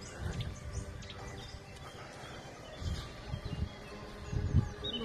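Irregular low thumps of footsteps and handling knocks on a phone microphone while walking over grass, with faint bird chirps behind.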